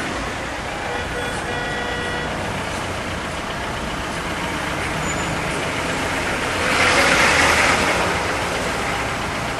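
Slow-moving road traffic: steady engine and tyre noise from a queue of cars, with a louder rushing sound that swells and fades about seven seconds in.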